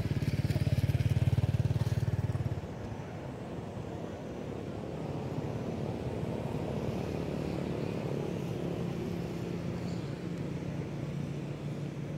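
A motor vehicle's engine running steadily, loudest for the first two and a half seconds and then quieter.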